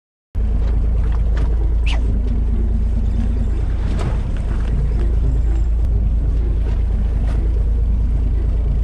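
Steady low rumble of a fishing boat's engine at sea, mixed with wind on the microphone and water against the hull. It cuts in suddenly just after the start, following a moment of silence.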